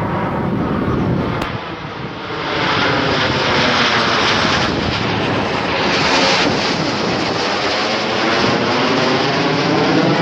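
Aircraft engine noise from an airplane flying past at an air show display, growing louder about two and a half seconds in and staying loud.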